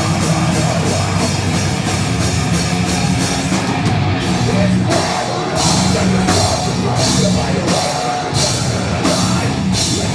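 Live metalcore band playing loud, heavy distorted guitars, bass and drum kit, with cymbals struck on a steady beat that turns slower about halfway through.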